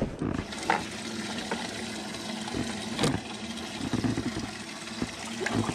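A small motor running steadily with a low hum, with a few sharp knocks and rubbing as the camera brushes against the boat seat, the loudest knock about three seconds in.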